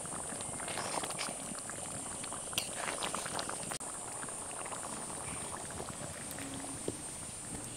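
Banana-flower and lentil curry bubbling thickly in the pan, with dense irregular crackling and popping, a spoon of ghee just added at the end of cooking. A steady high-pitched drone runs behind it.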